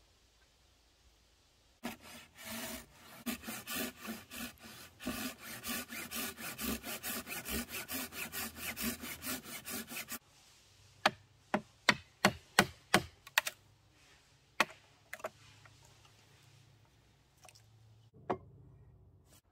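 Hand tool cutting wood as the workpiece spins back and forth on a home-built spring pole lathe: rhythmic scraping that starts about two seconds in and runs for about eight seconds, then stops suddenly. A quick run of about eight sharp wooden knocks follows, then a few scattered ones.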